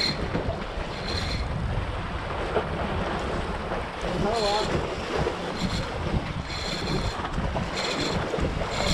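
Wind buffeting the microphone and sea waves washing against a concrete breakwater. Several short high-pitched buzzes come through it.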